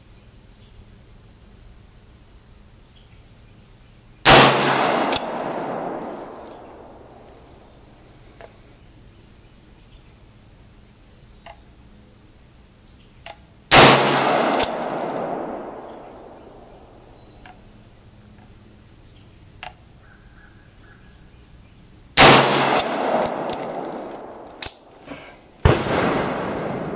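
AR-15 rifle firing three single shots about nine seconds apart, each sharp report followed by a long echo fading over about two seconds. A fourth, weaker report comes near the end.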